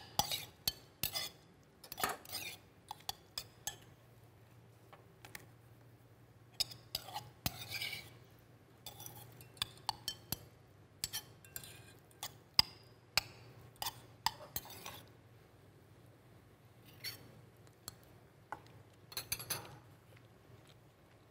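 Metal spoon clinking and scraping against a small stainless steel mixing bowl while stirring diced raw fish with oil and lime juice, in irregular clinks with a short pause a little after the middle.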